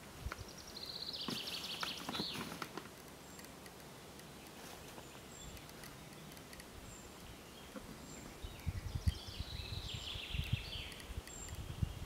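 A songbird sings a quick trill of rapidly repeated notes ending in a short flourish, twice: once near the start and again about nine seconds in. Faint high single chirps come in between, and low thumps join in the last few seconds.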